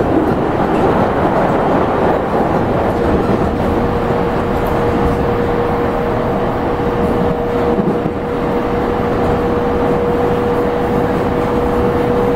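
E231-series electric commuter train running, heard inside the passenger car: a steady rumble of wheels and running gear on the rails. A thin steady tone joins in about three seconds in.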